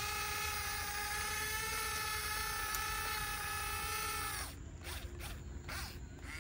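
Small electric gear motor of a YIGONG RC model excavator whining steadily as it drives the machine's movement, cutting off about four and a half seconds in, followed by a few light clicks.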